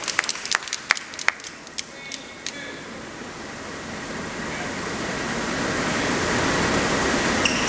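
Scattered handclaps dying away in the first couple of seconds, then the murmur of spectators' chatter in a sports hall, building steadily louder.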